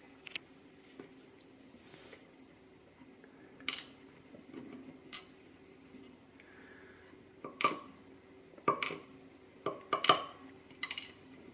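Small metal lock parts of a Laperche dimple lock core, pins, springs and tools, clicking and clinking while the core is taken apart. A few scattered clicks at first, then a busier run of sharp clinks in the second half.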